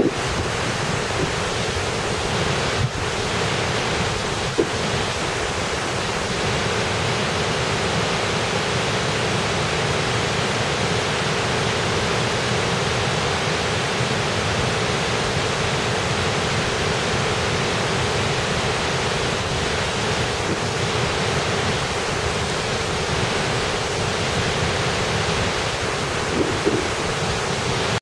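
Sekinoo Falls, a wide waterfall dropping in several streams over a rock ledge into a pool, making a steady, even rush of falling water.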